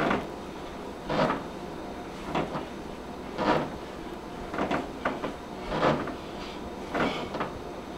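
Regular short thuds and puffs, about one every second, from a person doing high forward kicks barefoot on carpet: each kick brings a landing step and a hard exhaled breath.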